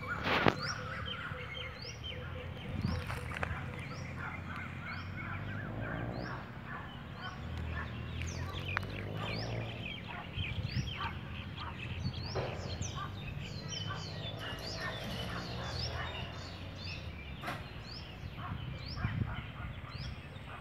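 Birds chirping and calling, one of them repeating a short rising note about once a second, over a steady low rumble.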